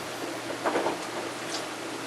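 Panasonic NA-VX7000R drum washer-dryer running with a steady hum and a wash of noise. There are a few light knocks or clatters, a cluster at about half a second in and one more near the end.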